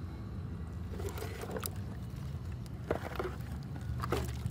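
Plastic TV chassis and circuit board being handled, knocking and scraping in a few short clatters, over a steady low rumble.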